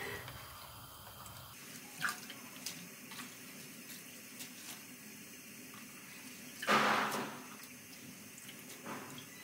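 Hands swishing and lifting chopped spinach in a plastic basin of water, with light splashes and drips. There is a louder splash about seven seconds in.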